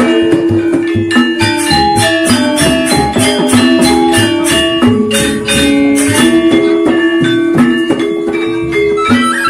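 Lombok saron gamelan playing: bronze metallophones struck in a ringing, interlocking melody over a steady beat from a two-headed hand drum and a kettle gong.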